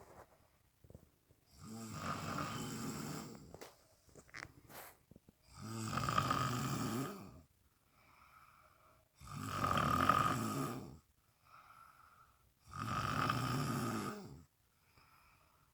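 Snoring: four loud, rasping snores at a slow, regular pace of about one every three and a half seconds, with softer breaths between them. A few faint clicks come between the first and second snores.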